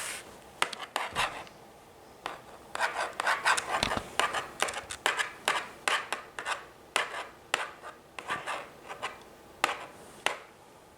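Irregular scratching and rubbing strokes of a drawing or writing tool being dragged across a surface, about one to three strokes a second, with short pauses between bursts.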